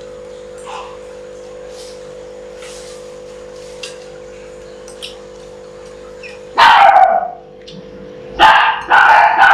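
Dog barking loud and repeatedly in two bursts over the last three seconds, barking at people passing by, over a steady low hum.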